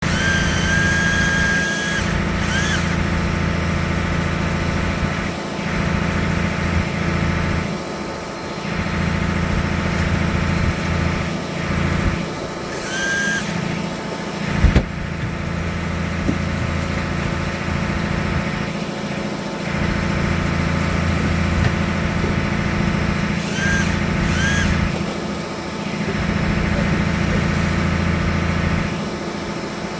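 A fishing boat's engine running with a steady low hum. A small motor whines in short spells three times over it: near the start, near the middle, and about four-fifths of the way through.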